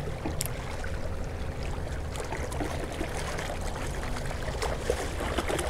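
Small waves lapping and trickling against jetty rocks, a steady wash of water with a low rumble beneath.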